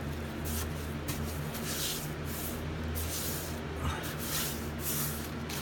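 Paintbrush swishing back and forth as primer is brushed onto old wooden trim, about two strokes a second, over a steady low hum.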